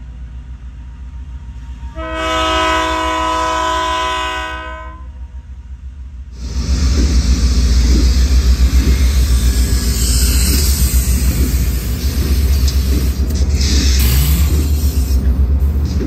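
Diesel locomotive horn sounding one long blast about 2 s in, following another just before, as the train comes up to a level crossing. From about 6 s the Canadian Pacific diesel locomotives pass close by, a loud steady rumble of engines and wheels on the rails.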